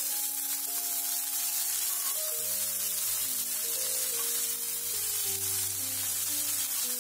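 Background music, a slow melody of held notes, over the steady sizzle of hot oil in a karahi as handfuls of wet, freshly washed chopped yardlong beans are dropped into it with fried onion and garlic.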